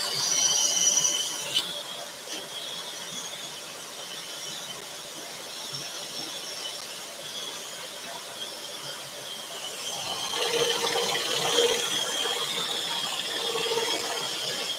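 Scroll saw running and cutting a pierced pattern in a thin wooden panel: a steady high-pitched whine over the rasp of the reciprocating blade, the cutting noise growing louder about ten seconds in.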